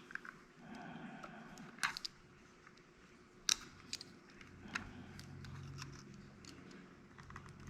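A few sharp, small clicks and ticks of hand tools and stripped wire being handled at close range, spaced irregularly about a second apart.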